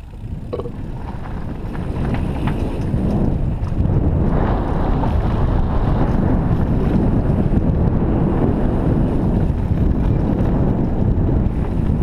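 Wind buffeting the camera microphone over the rumble and rattle of a downhill mountain bike rolling fast on a dirt trail, getting louder over the first few seconds as it picks up speed.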